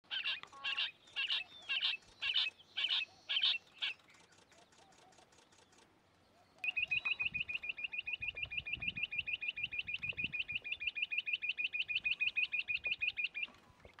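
Rock bush-quail calling: six loud, spaced notes over the first few seconds, then after a short pause a long, even series of short rising piping notes, about seven a second, that runs for about seven seconds and stops shortly before the end.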